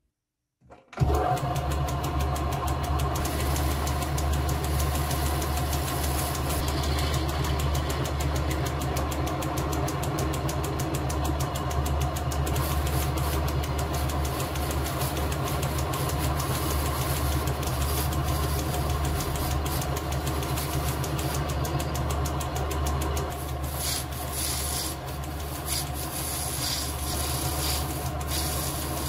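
Small vintage Lorch metal lathe starting suddenly about a second in and running steadily with a hum while the cutting tool turns brass bar stock. Scratchy cutting noises from the tool on the brass stand out more near the end.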